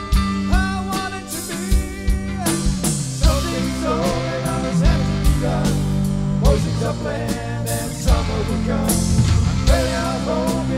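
Rock music: a band with drum kit, bass and guitars, a wavering lead melody line over steady drum hits.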